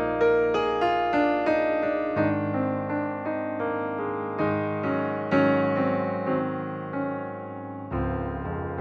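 Background music: gentle piano playing a slow melody over sustained chords, with a change of chord about two seconds in and again near the end.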